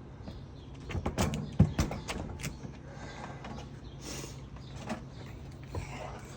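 Knocks and bumps of a refrigerator being pushed and shifted by hand, with a cluster of knocks about a second in and a few lighter ones later.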